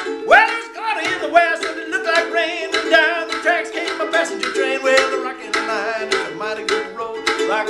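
Ukulele strummed in a steady rhythm of about three strokes a second, with a harmonica wailing over it in bent notes that slide upward in pitch.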